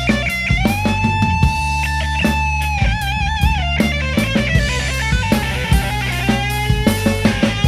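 Rock band playing with electric guitar, bass and drums. A lead line slides up into a long held note lasting about three seconds, followed by further sustained lead notes over steady drum hits.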